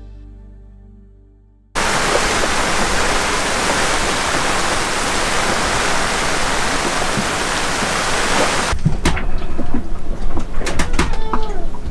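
A fading music tail gives way, about two seconds in, to the sudden loud, steady hiss of heavy rain pouring down on a sailboat at sea. The rain cuts off abruptly about two-thirds of the way through, leaving a quieter room with scattered clicks and a few short bird calls.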